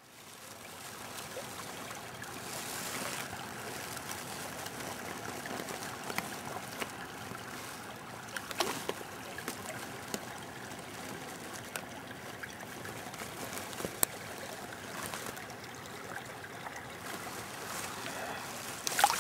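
Shallow stream water trickling steadily close to the microphone, with a few brief sharp splashes.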